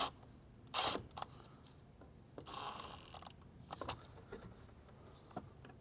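Cordless driver spinning a T25 screw to tighten a hose clamp on the intake pipe. Two short whirs near the start, then a longer run of about a second midway through, with a few light metallic clicks.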